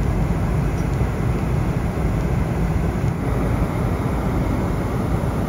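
Steady low rumble of cabin noise inside a Boeing 747-400 airliner in cruise.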